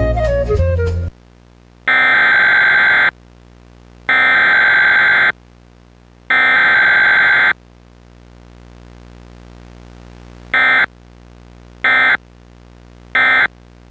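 Music cuts off about a second in. Then come three roughly one-second Emergency Alert System SAME header data bursts, a pause, and three short end-of-message bursts. There is no attention tone between them, the pattern of a Required Weekly Test.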